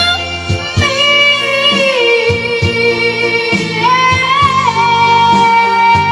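Music: a high singing voice holding long, slowly gliding notes over instrumental backing with a recurring beat.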